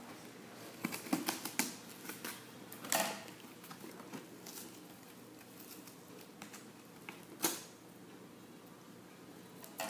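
Fingers and fingernails picking and scratching at the packing tape on a cardboard shipping box: a run of light clicks and taps, then short scrapes about three seconds in and again about seven and a half seconds in.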